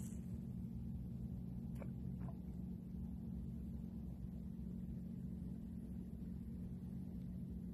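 A steady low rumble with a faint hum, and two faint ticks about two seconds in.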